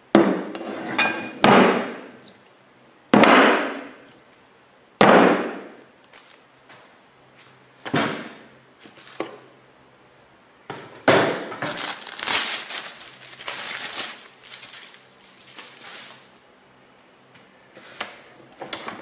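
Heavy weights and a wooden box lifted off a clamped cutting-board glue-up and set down on a wooden bench: four loud knocks in the first five seconds, then a couple of lighter ones. About eleven seconds in, plastic sheeting crinkles for several seconds as it is pulled off the glued board.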